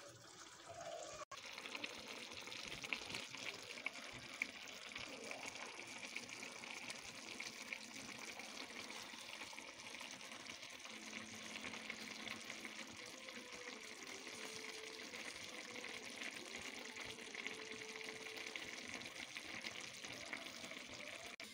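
Pot of chicken pulao rice simmering on medium heat, its last cooking water bubbling away as the rice dries out: a faint, steady hiss with fine crackles, starting about a second in.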